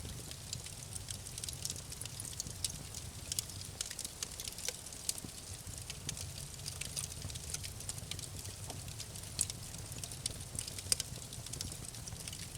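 Campfire burning with frequent irregular sharp crackles and pops over a soft steady low rumble of the flames.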